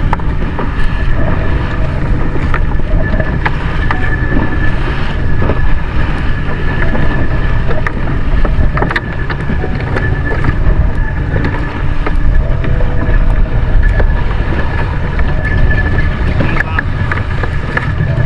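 Boat under way, its engine running steadily with a thin steady whine, while wind buffets the microphone.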